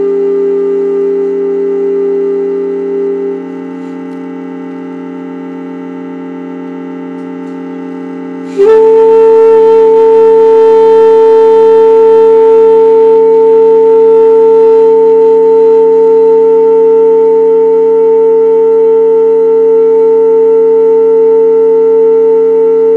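Saxophone holding long, steady notes over a sustained keyboard drone. One note stops about three seconds in, and a louder, higher note enters sharply near nine seconds and is held unbroken.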